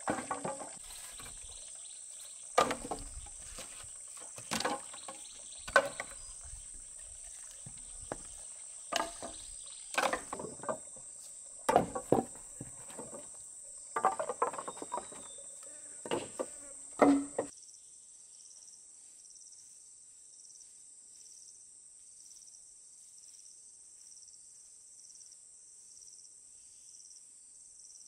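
Steady high-pitched insect chorus, with a scatter of sharp irregular knocks and clatters over the first two-thirds. At about 17 seconds the knocks stop, and the chorus goes on quieter and pulsing.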